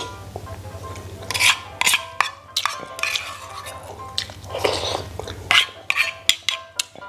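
Metal spoon clinking and scraping against a metal bowl while eating, a string of sharp clinks, over soft background music.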